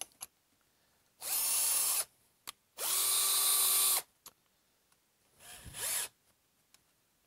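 Bosch 12-volt cordless drill/driver running unloaded in two short spins, the first under a second and the second just over a second, each a steady whine. The motor is being run to open and close the keyless chuck while a twist drill bit is swapped in.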